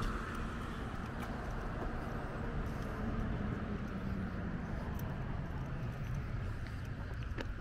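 Outdoor ambience while walking: a steady low rumble of wind on the camera microphone and distant traffic, with faint footsteps on asphalt.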